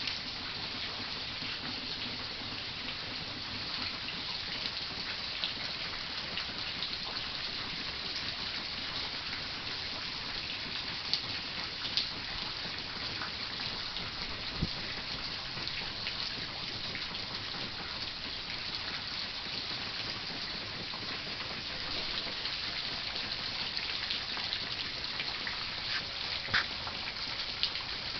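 Heavy rain falling steadily as an even hiss, with a few sharper drop ticks close by.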